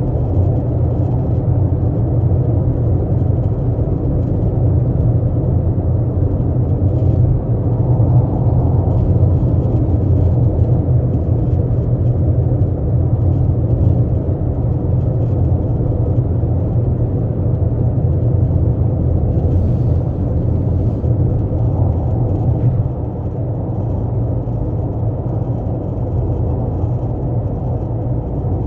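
12th-generation Toyota Corolla Altis running, a steady low rumble with faint scattered ticks above it, dropping a little in level about two-thirds of the way through.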